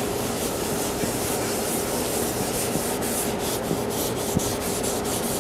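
Cloth rag rubbing wood stain onto a cedar box lid in quick, repeated back-and-forth wiping strokes, over a steady hum.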